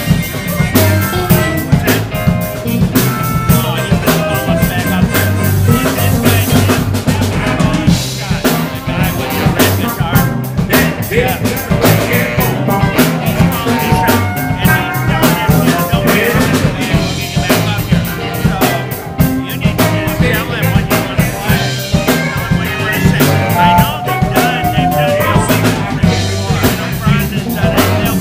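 Live blues band playing: electric guitars, bass and a drum kit with snare rimshots, with saxophone and amplified harmonica over the top.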